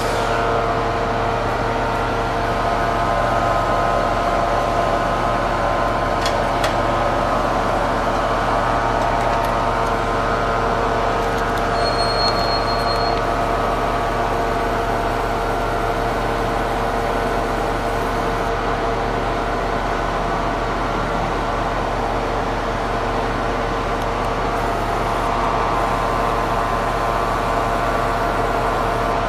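Diesel locomotive standing at the platform with its engine running steadily, a constant drone with several steady tones. A short high beep sounds about twelve seconds in.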